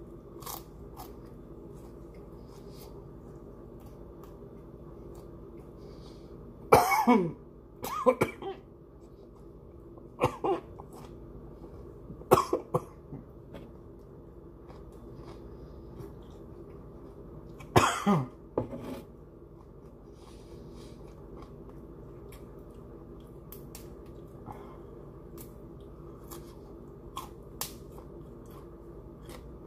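A man coughing and clearing his throat in several short fits while eating raw broccoli, the loudest coughs about seven and eighteen seconds in, over a steady low hum.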